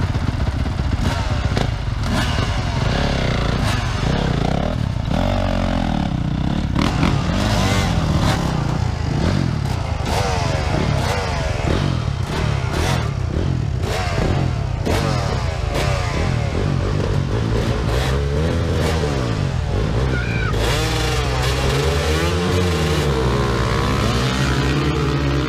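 Several motocross dirt bikes running together, their engines revved up and down again and again so that the rising and falling engine notes overlap.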